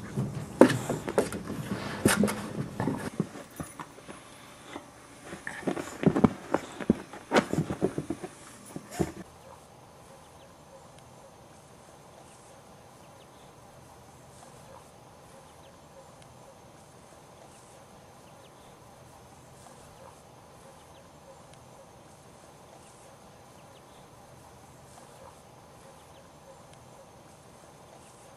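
Boxer puppies scuffling and wrestling with an adult boxer: about nine seconds of irregular knocks, thumps and scrabbling. This cuts off suddenly to a faint steady outdoor background.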